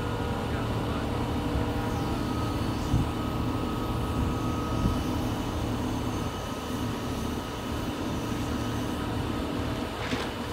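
Steady drone of a crane's diesel engine holding an engine note while the generator enclosure is lifted on its slings, with a couple of light knocks partway through.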